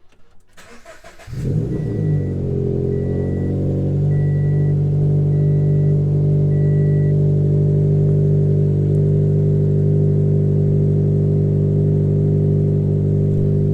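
Cold start of a Scion FR-S's 2.0-litre flat-four: a brief crank about a second in, then the engine catches and runs at a steady high idle, its pitch settling over the first few seconds. Five short, evenly spaced beeps from the car sound early on.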